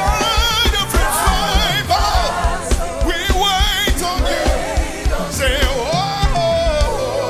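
Live gospel worship music: voices singing long, wavering held notes over a band with a steady drum beat.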